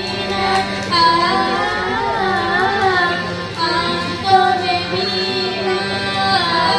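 Children singing a melody together, the sung line rising and falling over a steady low held tone.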